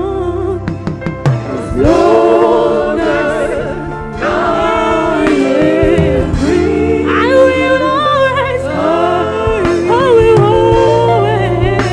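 Gospel praise singing with band accompaniment: voices sliding into long held notes with vibrato over steady bass and keyboard chords, with light percussion.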